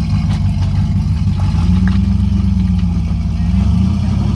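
SUV engine running steadily while driving a trail, its pitch stepping up slightly about one and a half seconds in, with a few light clicks and rattles over it.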